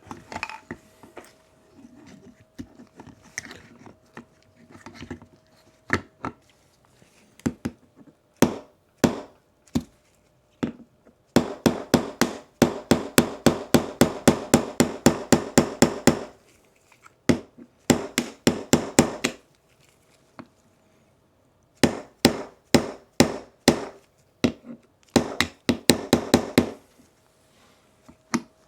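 Small hammer tapping a pin punch to drive a tight pin out of a pistol frame. A few scattered taps come first, then fast runs of sharp strikes, about four a second, with short pauses between. The pin is stuck hard and does not come free.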